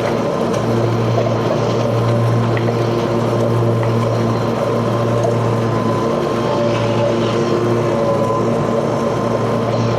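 Grasshopper front-mount riding mower's engine running steadily under mowing load, a constant hum with an even drone.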